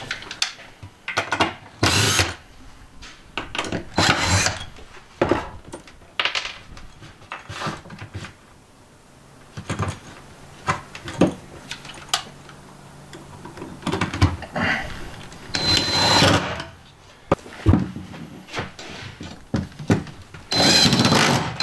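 Cordless impact driver running in several short bursts, driving screws to fasten a brass drop-ear PEX fitting down to a plywood base, with some bursts carrying a high motor whine and handling knocks in between.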